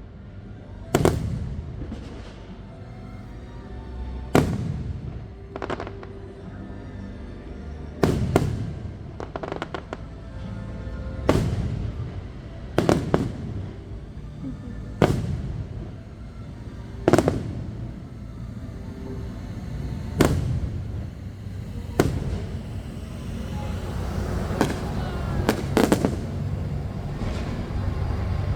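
Fireworks bursting overhead, with about fifteen booms every second or two that crowd closer together near the end, some with crackle. Music plays steadily underneath.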